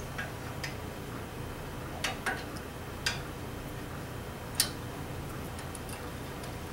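Scattered light clicks and taps of metal as an aluminium fence and its clamps are handled and adjusted on a bandsaw table, the sharpest about four and a half seconds in, over a steady low hum.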